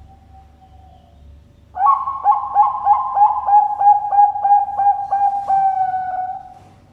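Zebra dove (Bangkok perkutut) singing: a faint drawn-out coo, then about two seconds in a loud run of quick, rhythmic coos, roughly three a second, that ends in a longer held note.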